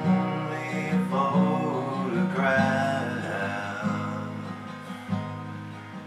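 Steel-string acoustic guitar strummed, its chords ringing and changing.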